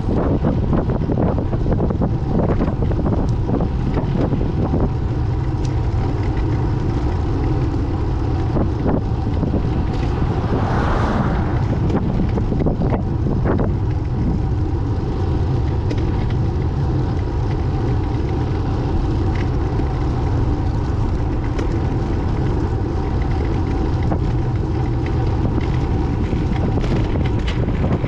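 Wind noise rushing over a cyclist's camera microphone during a fast road descent: a loud, steady low rumble.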